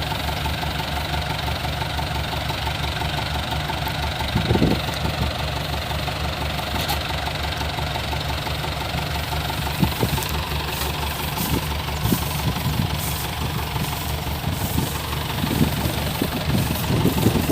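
Diesel engine of a Kubota DC-105X combine harvester running steadily, with scattered short knocks over it, most of them in the last few seconds.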